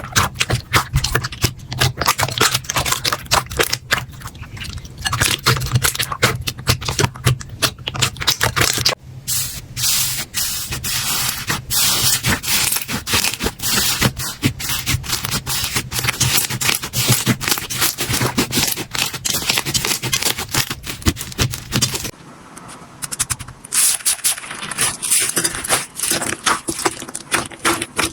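Slime being squeezed and worked by hand, a dense run of crackling, popping clicks. About three-quarters of the way through the sound changes and becomes thinner and higher.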